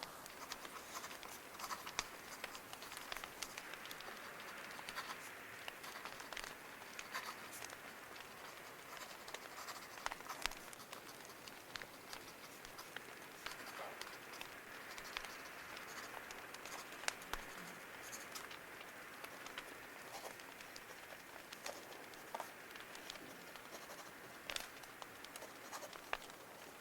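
Paper being handled and scratched during journal decorating, over a crackling fire: a steady hiss with many small sharp clicks scattered throughout.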